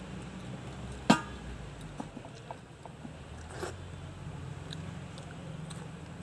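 Crisp corn-puff snacks and chips being bitten and chewed, with a sharp click about a second in and a short crunch a little past the middle, over a low steady hum.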